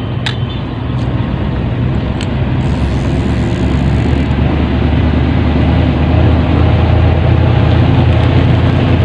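A low engine rumble, steady and slowly growing louder, with a few light clicks in the first couple of seconds.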